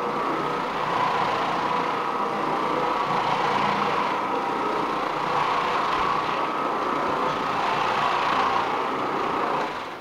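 Oreck Orbiter floor machine running with its nylon carpet brush scrubbing carpet: a steady motor hum with a mid-pitched whine over brushing hiss. It drops away sharply just before the end.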